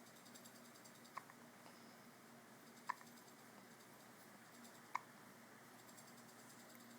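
A newborn baby hiccuping: three short, sharp little hics about two seconds apart over faint room hiss.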